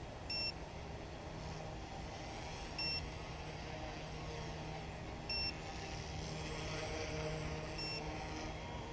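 Four short high beeps, about two and a half seconds apart: a low-battery warning. Underneath is the steady hum of the Yu Xiang UH-1 Huey remote-control helicopter's motor and rotors.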